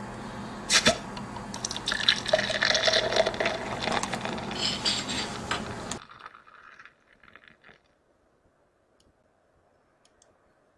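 Liquid being poured and splashing, with a sharp click about a second in; the pouring cuts off about six seconds in and fades to near silence.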